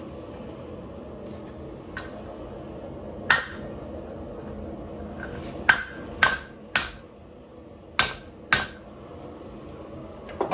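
Hand hammer striking hot 5160 steel on an anvil, about eight irregular blows, some in quick pairs, several leaving a brief high ring, over a steady background hum.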